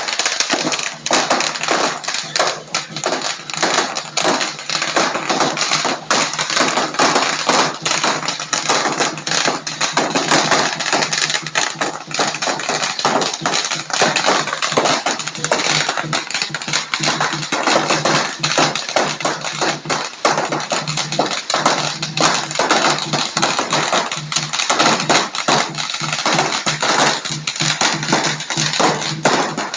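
A long string of firecrackers going off, a dense, unbroken run of rapid pops and cracks.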